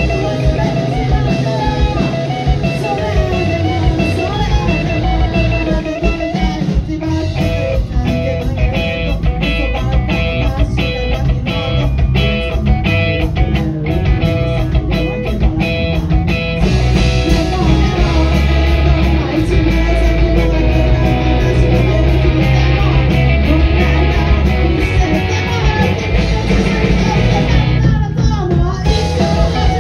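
Four-piece rock band playing live: electric guitars, bass and drum kit, with a sung lead vocal. The drums hit hard and regularly through the middle, and the highs drop out briefly near the end.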